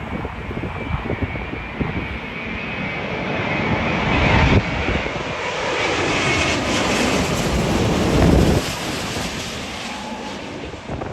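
An airliner passing close by as it comes in to land. The engine noise swells to its loudest around the middle, with a high whine over the roar, then eases off. Gusty wind buffets the microphone.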